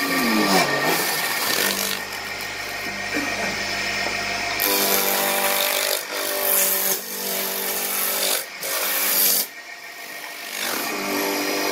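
Wood lathe motor humming as a hand-held turning tool cuts a square wooden blank down to a round cylinder: a loud, rough hiss of the cut from about five seconds in, lasting about five seconds, then stopping and leaving the motor's hum to fade out near the end.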